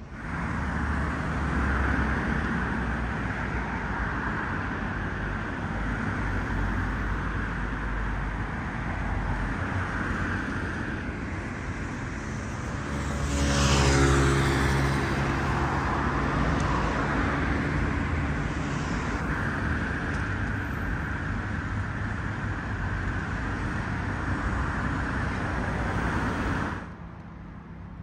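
Street traffic noise, with a car passing close by about halfway through; the sound cuts off suddenly near the end.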